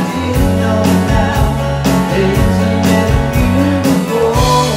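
A band playing a song live: two electric guitars over a steady beat and bass notes, with a man singing.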